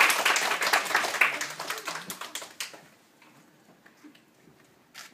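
A small audience clapping, dying away about three seconds in. The room then goes quiet except for faint rustles and a short knock near the end.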